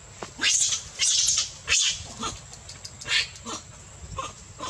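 Macaques screaming: several loud, harsh shrieks in the first two seconds, another about three seconds in, and softer calls in between.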